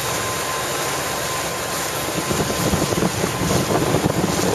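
Wind buffeting the microphone: a steady rushing hiss that turns gustier and louder from about two seconds in.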